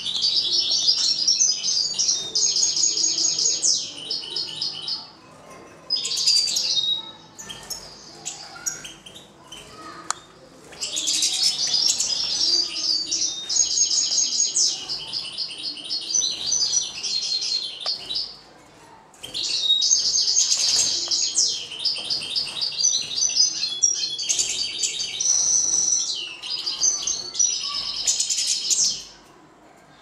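Caged songbirds singing long phrases of rapid, high, repeated trills, broken by pauses of one to a few seconds.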